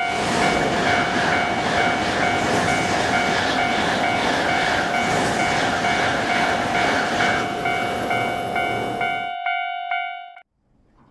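A Shinkansen bullet train rushing past a Japanese level crossing: a loud, steady rush of train noise that starts abruptly, over the crossing's warning bell clanging about twice a second. The train noise cuts off about nine seconds in, and the bell stops about a second later.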